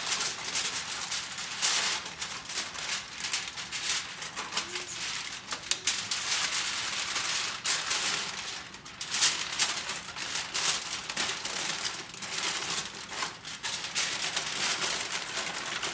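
Aluminium foil crinkling and crackling as it is folded and crimped by hand into a wrap, a dense run of small crackles that eases briefly about eight seconds in.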